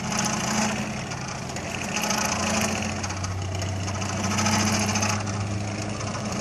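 Electric motors of a robotic bicycle running under test signals for system identification: a steady hum with a high whine and hiss that swells and fades about every two seconds.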